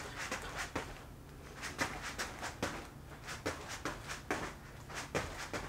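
Light, irregular thuds and scuffs of feet in soft moccasin boots hopping side to side on a foam play mat, several landings a second.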